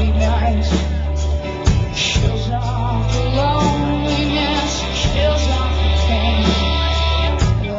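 Live rock band playing: a woman singing over electric guitar and drums, with deep bass notes held for a second or more at a time, picked up by a small camcorder's built-in microphone.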